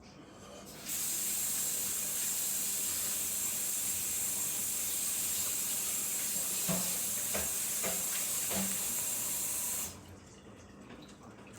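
Water tap running in a kitchen sink, a steady hissing rush that turns on suddenly about a second in and shuts off about nine seconds later, with a few soft knocks near the end.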